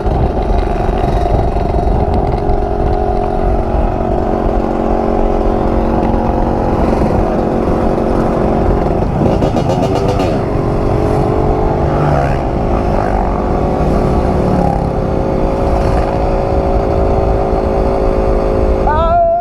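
Two-stroke 125 cc dirt bike engine running at a steady speed, with a brief dip and rise in pitch about halfway through.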